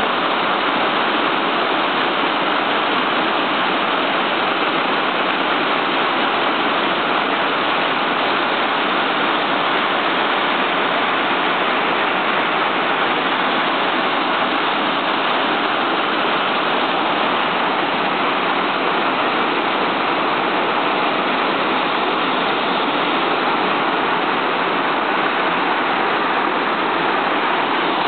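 Waterfall pouring into a mountain river, a steady, even rush of falling water.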